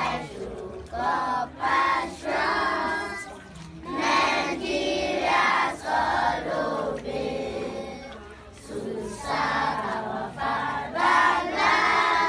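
A large group of schoolchildren singing together in unison, in short phrases with brief pauses between them.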